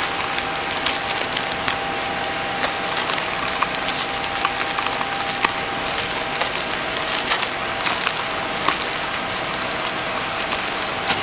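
Toilet paper packing machine running: a steady mechanical noise with a dense, irregular clatter of clicks and a faint steady tone underneath.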